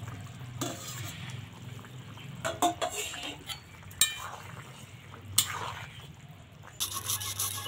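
Steel ladle and spatula stirring a simmering fish and turnip curry in a steel karahi, clinking against the pan a handful of times, one clink ringing. Near the end a steady rasping scrape starts.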